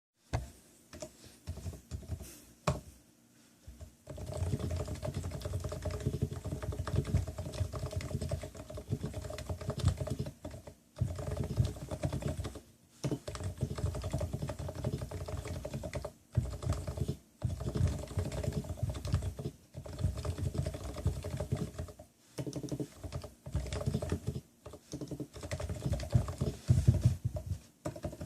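Leopold FC660C keyboard with Topre electrostatic capacitive switches, tuned, being typed on: a few scattered keystrokes at first, then from about four seconds in fast, continuous runs of keystrokes broken by brief pauses.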